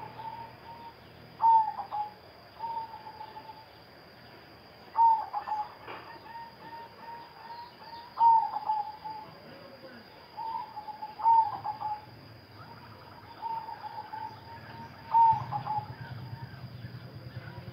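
Zebra dove (perkutut), silver colour variety, cooing: phrases repeated every three seconds or so, each starting with a loud note and trailing off into a run of quieter, quick coos.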